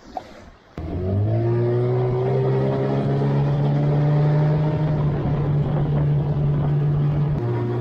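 Outboard motor on a small inflatable boat running under way. It comes in suddenly about a second in, its pitch climbs over the next couple of seconds as the revs build, then holds a steady drone, and it steps down a little near the end.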